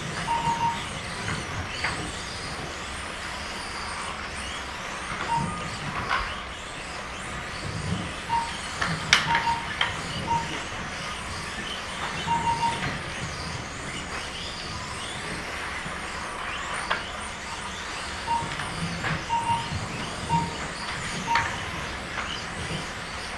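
Mini-Z 1:28 electric RC cars racing on a carpet track: a steady high whine of small motors and gears, with scattered clicks and knocks of cars hitting the barriers, the sharpest about nine seconds in. Short, identical beeps sound at irregular intervals from the lap-timing system as cars cross the line.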